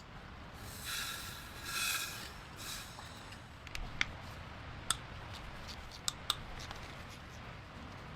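Hand work on engine parts: three short rasping strokes in the first three seconds, then a few sharp clicks and taps.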